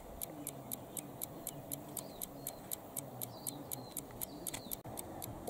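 Balance-wheel escapement of a 1962 AEG electromechanical time switch ticking, a steady quick tick at about four to five ticks a second. The once-stuck escapement is running freely again after lubrication.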